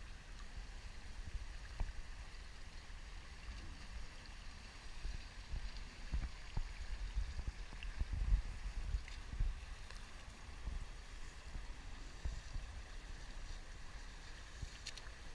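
Pool water sloshing and lapping against a camera pushed along at the water's surface: a muffled low rumble with irregular thumps and a faint hiss, with a few sharper splashy clicks near the end.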